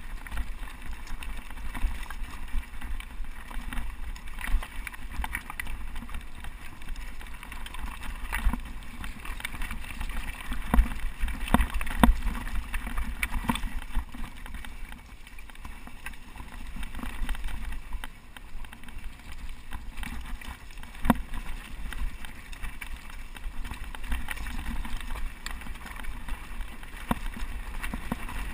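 Mountain bike rattling and clattering over a rocky trail, with wind buffeting the bike-mounted or helmet camera microphone. Frequent knocks from tyres and frame on stones, busiest and loudest about ten to thirteen seconds in.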